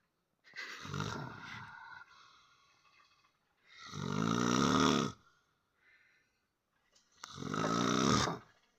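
A person snoring loudly: three long snores about three seconds apart, each lasting around a second, with near quiet between them.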